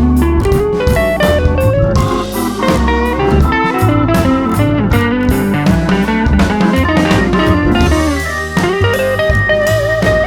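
Background music: blues-style electric guitar lead over bass and drums.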